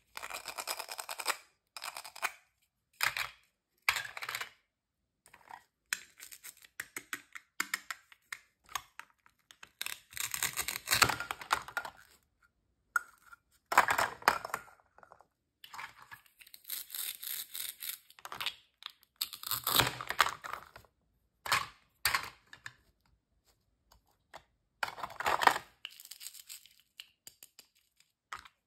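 Plastic toy fruit and vegetable pieces joined with velcro being handled and pulled apart: rasping velcro tears mixed with plastic clicks and knocks, coming in irregular bursts with short pauses between.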